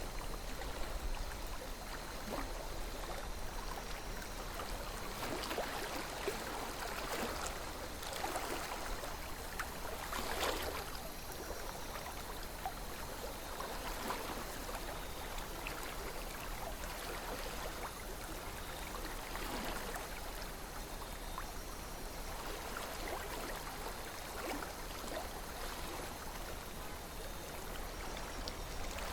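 A calm river flowing, a steady rush of water with scattered brief gurgles and splashes. The most distinct splash comes about ten seconds in.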